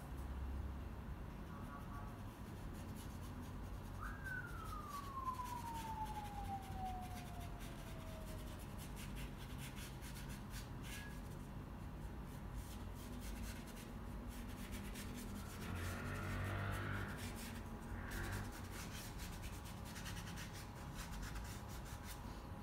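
A paintbrush scratching and rubbing across canvas paper in short strokes. About four seconds in, a separate tone slides steadily down in pitch over about four seconds.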